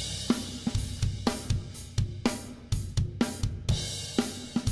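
Intro music with a drum kit playing a steady beat over low bass notes.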